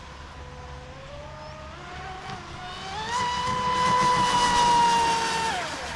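High-pitched electric whine of a Vector SR80 Pro RC speedboat's 2300 kV brushless motor running flat out on 4S. The pitch climbs over the first three seconds and the whine grows loud as the boat passes close, then drops in pitch shortly before the end.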